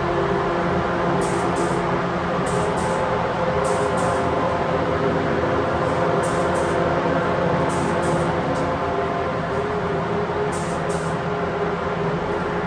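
Paint spray booth ventilation running, a steady mechanical drone with a constant hum.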